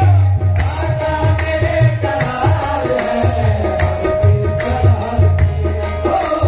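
Live qawwali music: tabla drumming a steady beat under a long held melody note.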